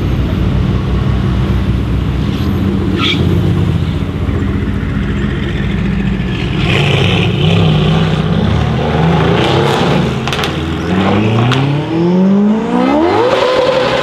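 Supercar engines running steadily at low revs, then the Ferrari 488 Pista's twin-turbo V8 with its Novitec exhaust accelerating hard from about nine seconds in, the revs climbing in one long rise. A few sharp cracks come along the way.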